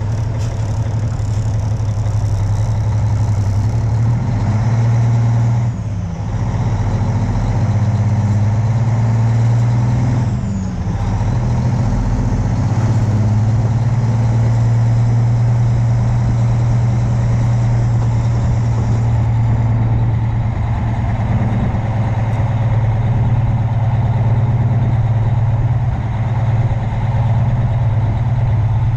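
Semi-truck's diesel engine running steadily with a low drone, with brief shifts in pitch about five and ten seconds in.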